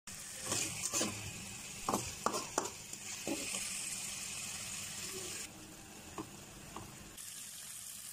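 Minced chicken sizzling in hot garlic oil in a metal pan, with a slotted metal spatula scraping and knocking against the pan as it stirs and breaks up the meat. The knocks come several times in the first three seconds, and the sizzle drops away about halfway through, then returns near the end.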